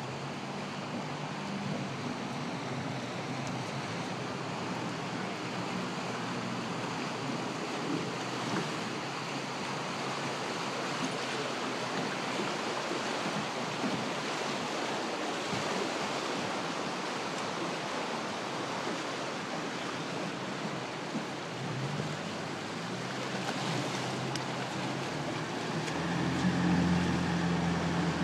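Rushing river water and wind on the microphone, with an outboard motor humming steadily underneath; the motor grows louder near the end.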